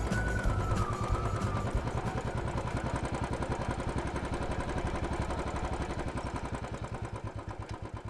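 Motorcycle engine idling with a fast, even beat, about ten pulses a second, slowly fading.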